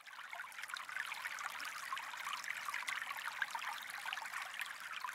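Small fountain jets splashing steadily into a shallow pool, a fine patter of falling water that fades in at the start.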